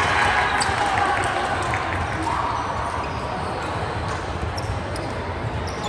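Volleyball play in a gym hall: ball contacts and bounces with a few brief, sharp high chirps over a steady echoing background of faint voices.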